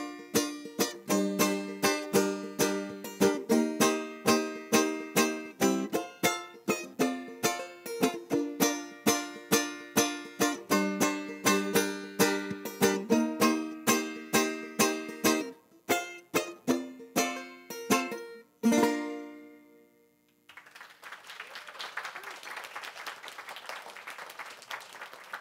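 Banjo picked in a steady rhythm, about two accents a second, closing on a final strum that rings out about 19 seconds in. After a short pause, an audience applauds.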